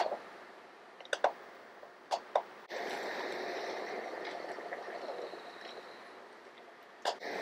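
A few sharp clicks, then steady running water that starts suddenly about a third of the way in, with another click near the end.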